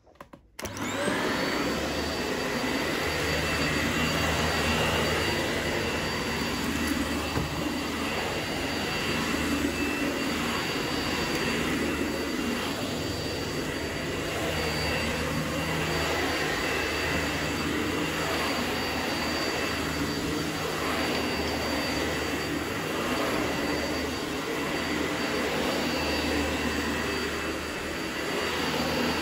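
Dyson Light Ball Animal upright vacuum cleaner switching on about half a second in, then running steadily with a high whine. Its cleaner head is pushed back and forth over carpet, and the low part of the sound swells and eases every few seconds.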